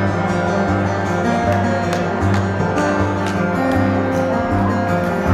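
Acoustic guitar played live, a picked introduction: plucked notes ringing over a low bass note that changes about every second.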